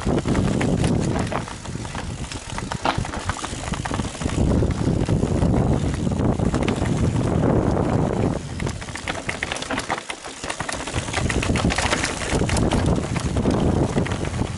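Mountain bike being ridden on a trail, filmed from the rider: a steady low rush of wind on the microphone with tyres running over the ground and a constant stream of clicks and rattles from the bike, easing briefly past the middle.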